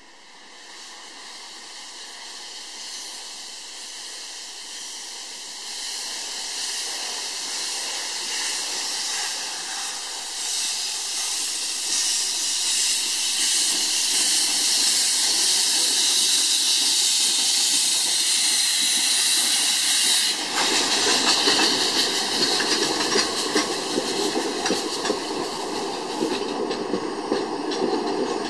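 Saxon IV K narrow-gauge steam locomotive 99 1594-3 moving off with its cylinder drain cocks open, a steady hiss of steam that grows louder as it comes closer. About two-thirds of the way in the sound changes to the rumble and clatter of its coaches' wheels rolling past on the rails.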